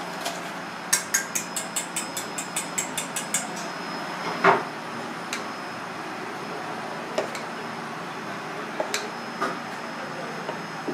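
Wire whisk beating tempura batter in a stainless steel bowl, the wires clicking rapidly against the metal at about six strokes a second for a couple of seconds, followed by one louder knock and a few scattered clinks.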